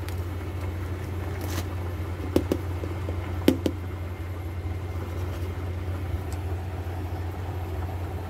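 A steady low hum throughout, with a few light knocks at about two and a half and three and a half seconds in as a plastic measuring cup of rice flour is handled and set down on a countertop.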